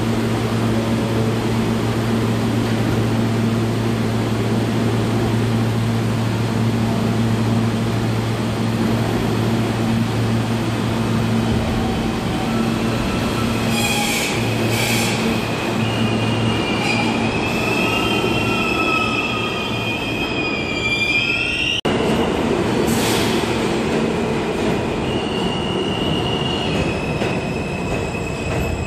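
An R160 New York subway train stands in the station with a steady low hum, then pulls out and runs past, its wheels squealing with shifting high-pitched tones over the rumble of the cars.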